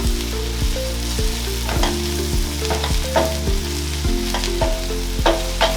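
Onions and tomato paste sizzling in a frying pan while being stirred, with repeated scrapes of the spoon against the pan.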